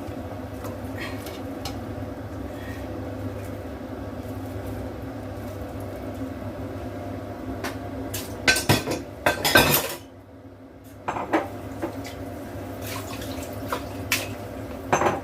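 Pots, bowls and utensils clattering and knocking as soup ingredients are put into a cooking pot, with a burst of louder clatter a little past halfway. A steady low hum runs underneath.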